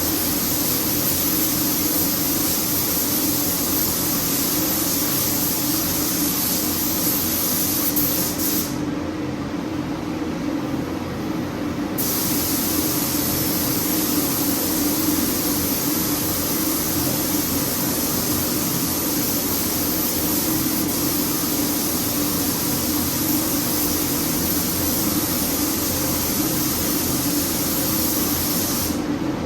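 Paint spray gun hissing steadily while the engine bay is painted, the spray stopping for about three seconds around nine seconds in and again briefly near the end as the trigger is let off. A steady hum runs underneath.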